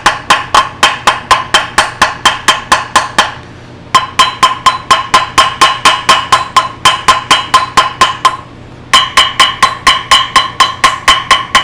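Small ball peen hammer giving light, quick taps around the bolt holes of a RedMax backpack blower's cylinder, about four or five a second in three runs with short pauses, each tap ringing with a clear metallic tone. The tapping sends vibration through the cylinder to break up a head gasket fused to it.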